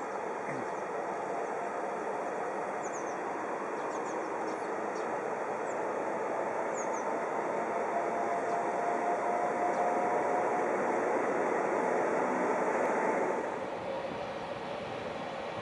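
Green Cargo Rc electric locomotive 1076 hauling a freight train of tank wagons slowly into the station: a steady rumble of motors and wheels that grows louder as it approaches, with a faint whine and a few light squeaks. The sound drops abruptly near the end.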